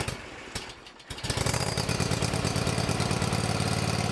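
Hustler Raptor zero-turn mower engine turning over, catching about a second in, then running steadily with a fast, even pulse: the new starter solenoid and battery have cured its failure to crank.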